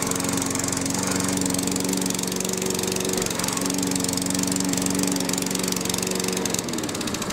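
Hyundai HYM430SPE mower's 139cc OHV four-stroke single-cylinder petrol engine running steadily with the self-propelled rear-wheel drive engaged, then winding down and stopping near the end as it is switched off.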